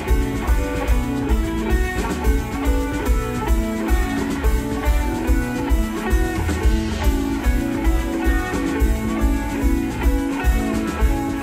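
Psychedelic jam band playing live: electric guitar over bass, drums and keyboards, with a steady beat.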